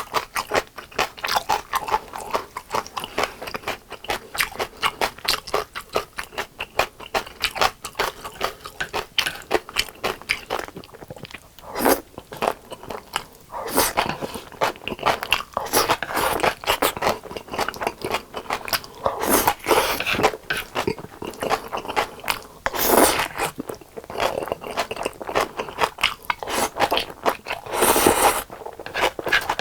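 Close-miked chewing of crispy fried chicken: a dense, unbroken run of crunches, with louder bites every few seconds.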